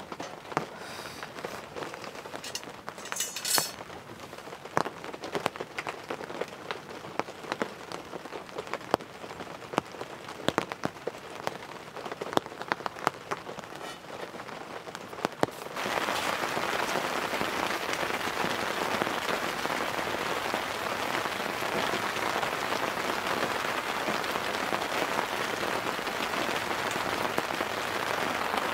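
Rain falling on the campsite. First, separate drops tap on a surface over a light patter; about halfway through the sound switches suddenly to a steady, heavy downpour hiss.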